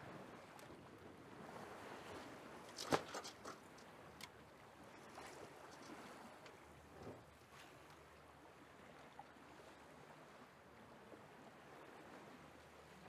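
Faint ambient noise with scattered light clicks and knocks, one sharper knock about three seconds in.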